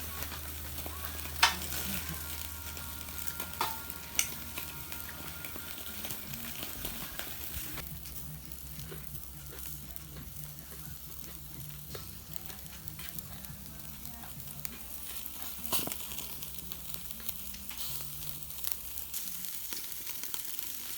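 Meat sizzling and crackling on a hot grill pan, with a few sharp clicks along the way and a steady low hum that stops near the end.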